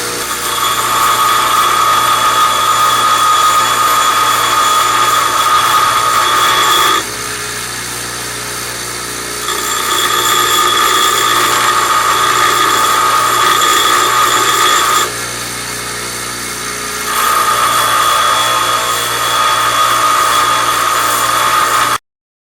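Bench grinder grinding down the protruding lip on a differential gear: three long spells of grinding with the wheel spinning more quietly between them. The sound stops suddenly near the end.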